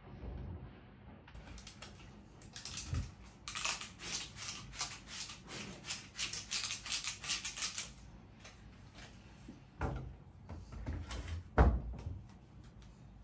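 Handheld trigger spray bottle spritzed over and over, a quick run of short hissing sprays at about four a second lasting several seconds. Two dull thumps follow near the end, the second the loudest.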